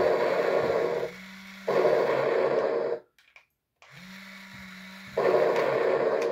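Walking mechanism of a 1997 Toy Biz remote-control Pachycephalosaurus toy: its electric gear motor runs as the legs step, loud stretches alternating with a quieter steady hum. It stops for nearly a second about three seconds in, starts again, and cuts off near the end.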